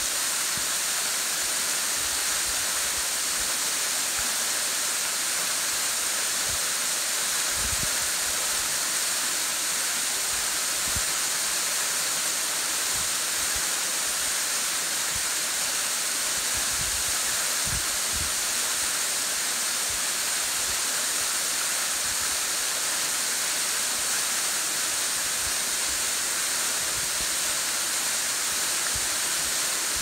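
Waterfall pouring down a rock face and splashing into a pool: a steady hiss of falling water. A few short, low buffets of wind on the microphone break in now and then.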